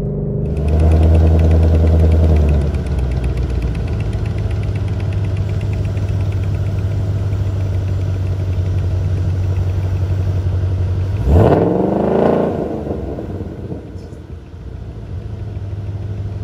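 A 2020 Shelby GT500's supercharged 5.2-litre V8, breathing through a modified exhaust with an X-pipe, running with a steady low drone. About eleven seconds in it gives one quick rev that climbs sharply in pitch and falls back, then it settles to a steady idle.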